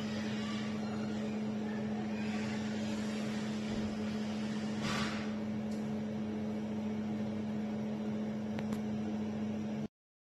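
Steady electrical hum with room noise, a brief rush of noise about five seconds in and a faint click near the end, then the sound cuts off abruptly to silence.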